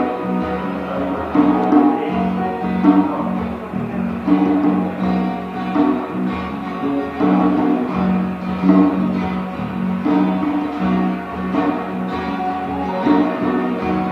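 Instrumental music.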